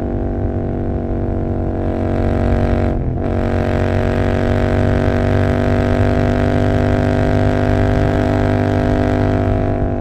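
Royal Enfield Continental GT 650's parallel-twin engine, breathing through aftermarket Emgo cafe mufflers, running under load on the road. The note breaks briefly about three seconds in, then its pitch climbs slowly as the bike pulls again.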